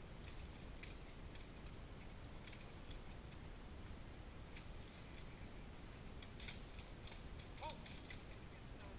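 Faint, sharp clanks of steel weapons striking plate armour and each other at a distance, scattered and irregular. A quick flurry of several strikes comes between about six and eight seconds in.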